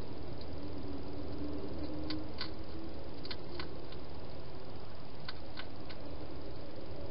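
Wild hedgehog feeding at a bowl inside a plastic feeding station, giving a few short sharp clicks in pairs, about two seconds in, again a second later and a third time near five and a half seconds in. A steady hiss and low hum lie under it.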